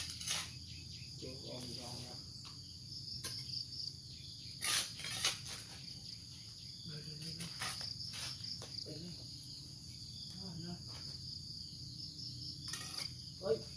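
A hand tool chops and scrapes into soil and dry leaves in irregular strikes, the loudest clustered a little before the middle and near the end. Under them runs a steady high insect drone of crickets.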